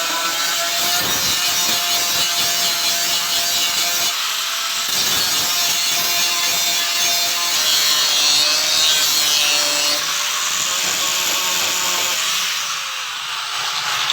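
Electric power tool running steadily under load with a dense, hissing grinding or abrading noise over a faint wavering motor tone, stopping abruptly near the end.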